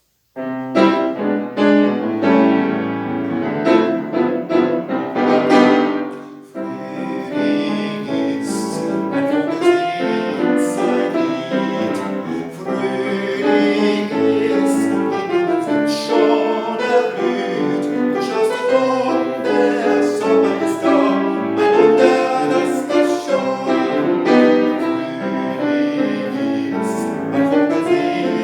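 Piano playing the melody of a simple children's round, with chordal accompaniment, note after note.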